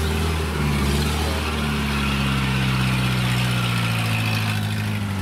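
Kubota DC-70 combine harvester's diesel engine running steadily at low speed, its pitch rising and dipping slightly.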